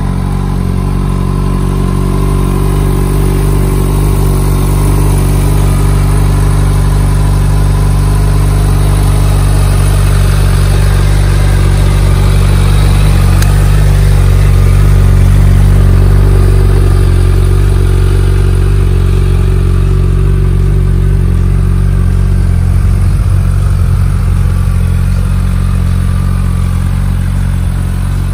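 Suzuki Hayabusa's 1,340 cc inline-four engine idling steadily at an even pitch. It grows gradually louder toward the middle and eases off again.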